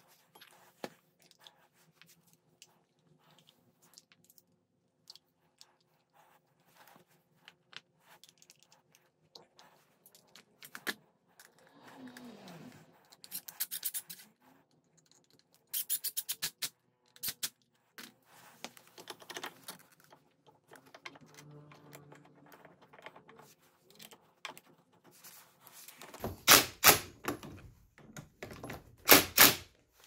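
Keyang cordless impact driver hammering in several short bursts as it runs the brake caliper bolts in, the loudest bursts near the end, with light clinks of metal parts being handled in between.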